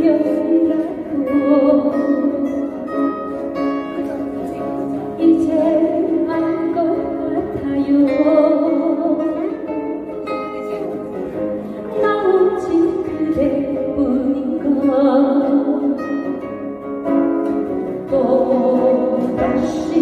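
Two acoustic guitars playing a song together, with a woman singing over them.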